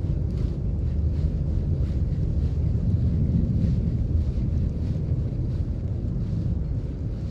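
Wind buffeting the microphone: a steady low rumble without a break.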